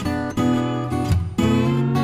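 Background music: acoustic guitar strummed in a steady rhythm, with chords changing every half second or so.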